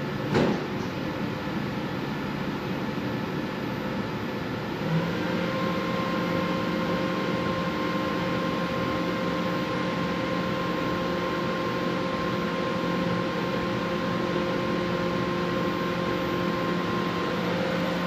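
Steady hum of milk-house machinery. A short click comes just after the start, and about five seconds in another motor starts, adding a hum of several steady tones that holds to the end.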